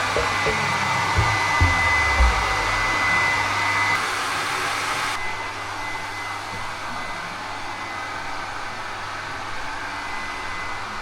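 Steady whooshing drone of an electric motor moving air, with a thin high whine over it and a few low thumps in the first three seconds. The hiss thins out abruptly about five seconds in, and the motor keeps running.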